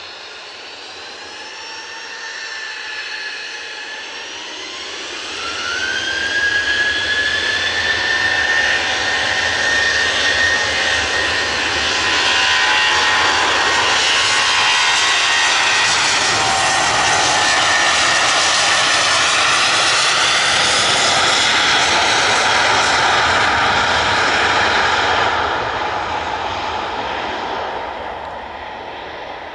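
Ryanair Boeing 737's twin jet engines spooling up for takeoff, a whine rising in pitch over the first few seconds. They then run loud and steady at takeoff power during the takeoff roll, and fade in the last few seconds as the jet moves away.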